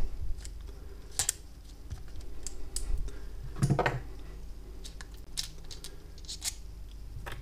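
A few sharp clicks and light metal taps spread over several seconds: pliers and fingers working the rotor nut of a spinning fishing reel loose and handling the small parts.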